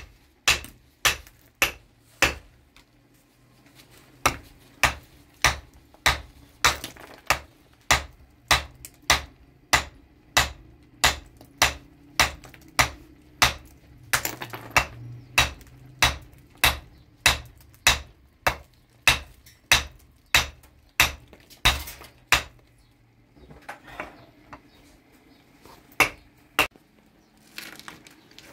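A hammer striking stone blocks again and again, breaking and trimming them, at about two sharp blows a second. The blows pause briefly a couple of seconds in, and give way to a few scattered lighter knocks near the end.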